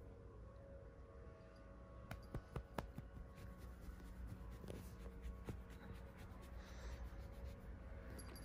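A hand patting and rubbing a cat's fur: soft rustling with a quick run of light taps about two to three seconds in and scattered ticks after.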